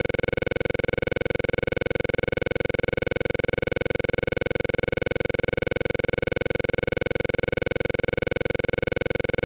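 Steady electronic buzz made of several fixed tones over a fast, even pulsing, unchanging throughout.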